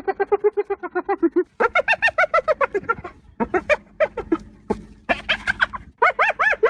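Hyena giggling: rapid runs of short pitched yelps, about eight a second, in several bouts broken by brief pauses. The calls jump higher in pitch about one and a half seconds in, and the notes turn into rising-and-falling arches near the end.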